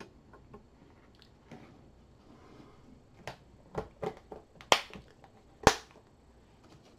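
A few sharp clicks and knocks as a cardstock explosion box is handled and moved on a craft mat, with two loud sharp snaps about a second apart in the middle.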